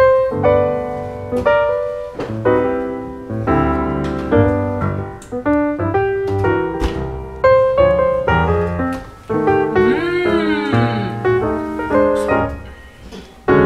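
Background piano music, a steady run of struck notes. About ten seconds in, a brief gliding sound rises and falls in pitch over the music.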